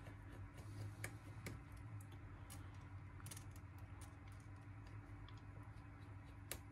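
Faint, scattered clicks and ticks of a precision screwdriver turning tiny screws in an opened iPhone X, over a low steady hum.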